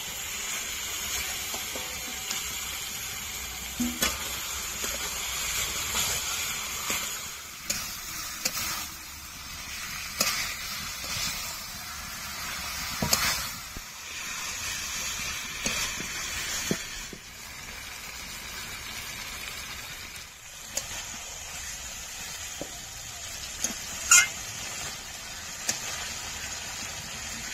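Chicken pieces sizzling as they fry in hot oil and spice masala in a pan, with a spatula scraping and knocking against the pan as the meat is stirred and browned. The sizzle is a steady hiss, broken by sharp knocks, the loudest a little over three-quarters of the way through.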